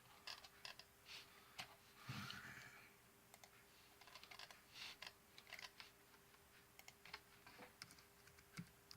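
Faint computer keyboard typing with mouse clicks: scattered, irregular keystrokes over a faint steady hum.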